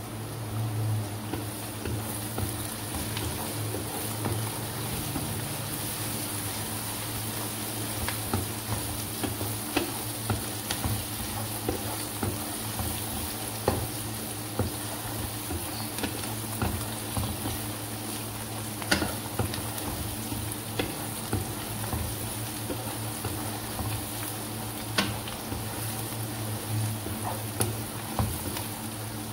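Sliced onions sizzling in hot oil in a wok, stirred with a spatula that clicks and scrapes against the pan now and then.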